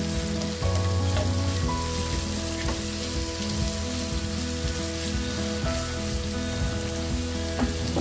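Sliced onions sizzling steadily in hot oil in a pan as a spatula stirs them, at the start of frying them until translucent. Soft background music with sustained notes plays under the sizzle.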